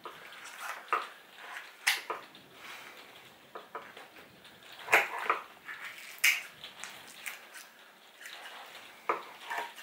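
Kitchen shears snipping and crunching through a roast chicken's crispy skin: a series of irregular sharp crunches and clicks, a few seconds apart.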